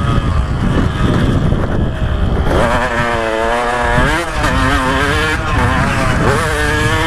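Single-cylinder two-stroke engine of a 2015 KTM 125 SX motocross bike revving hard, its pitch rising and falling with the throttle through the track sections. There is a sharp rise about four seconds in and another near the end, over a heavy rush of wind on the microphone.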